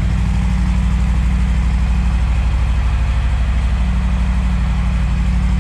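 2018 Harley-Davidson Breakout's Milwaukee-Eight V-twin idling steadily with an even low pulse, freshly started after a no-start on a recharged battery.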